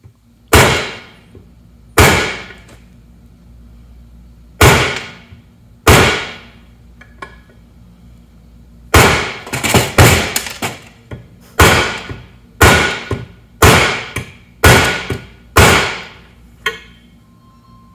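Hammer blows on a steel bearing driver, seating a new bearing into a Toyota Land Cruiser transfer case housing. Each sharp metallic strike rings out briefly. Four blows come a second or two apart, then a quicker run of about a dozen more.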